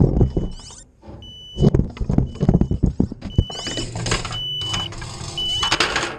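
An FPV quadcopter's lost-model buzzer beeping, a short high steady tone about once a second, over knocks, clicks and rustling as the quad and its onboard camera are handled.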